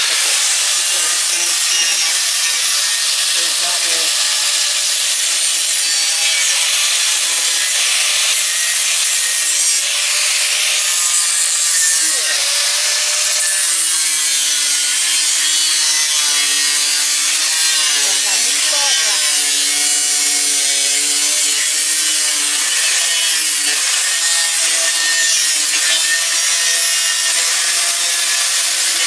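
Electric power tool running continuously under load, cutting through metal, its motor whine wavering in pitch as the cut bites and eases.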